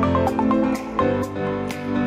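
Background music: a soft, melodic instrumental with a steady beat.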